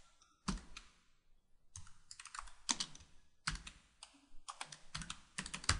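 Computer keyboard being typed on: runs of quick key clicks in several short bursts, with brief pauses between them.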